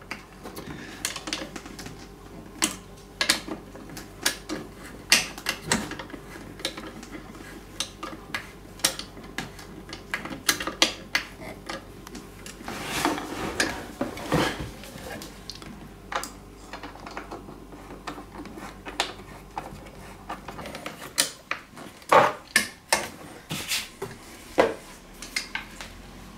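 Hand screwdriver tightening self-tapping screws into the wooden brace of an Ikea Nordmyra chair frame: irregular small clicks and knocks of the tool and wood. A run of louder wooden knocks comes near the end as a chair part is handled.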